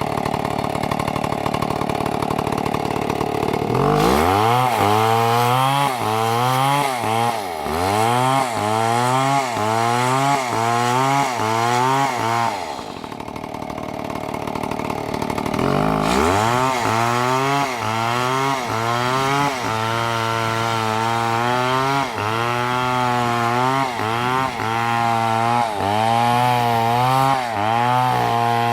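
Two-stroke chainsaw cutting into a big tree trunk at high revs, its pitch sagging and recovering about once a second as the chain bites into the wood. About halfway through it eases off for a few seconds, then picks up the same rhythm again.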